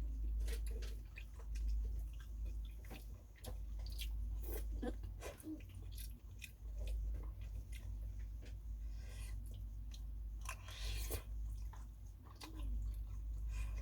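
Close-up mouth sounds of someone eating pho: chewing with many small wet clicks and smacks, over a steady low hum.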